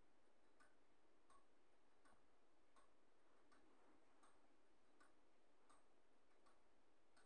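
Near silence with a faint, regular ticking, about one tick every three-quarters of a second.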